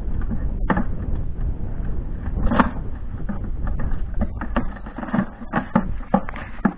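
Irregular metallic clicks and knocks from hands working on the cutting machine mounted on the rail trolley, over a steady low rumble.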